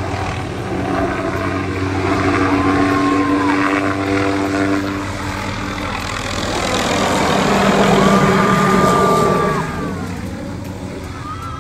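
Helicopter flying low overhead, its rotor and engine running with a steady hum. It grows loudest about eight seconds in and drops off just before ten seconds.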